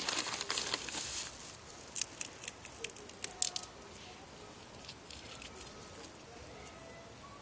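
A short rustle, then a few light sharp clicks, as of peanuts in their shells being handled in the fingers.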